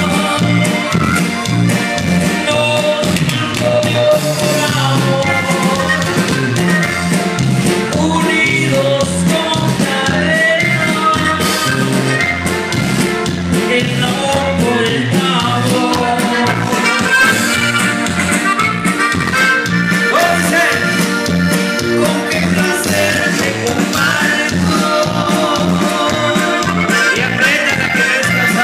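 Live norteño band music: a button accordion plays the lead over a bajo sexto and a steady, bouncing bass line.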